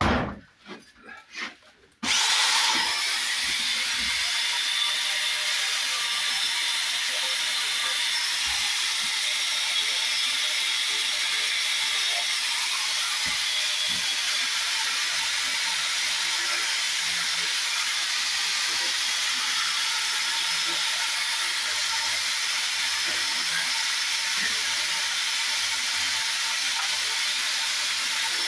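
Handheld power saw cutting into the perpend mortar joints and damaged brick faces, cutting them back to take brick slips. After a few light knocks, the saw starts about two seconds in and runs with a steady, high-pitched grinding noise.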